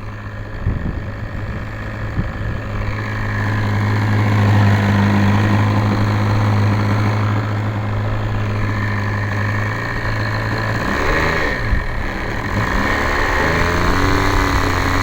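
Enya 60 nitro glow engine of a PT-40 RC plane running at a steady low speed, then its pitch wavers and climbs in the last few seconds as the throttle is worked.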